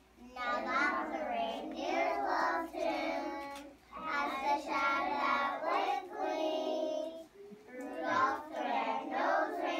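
A class of kindergarten children singing together, in sung phrases with short pauses between them.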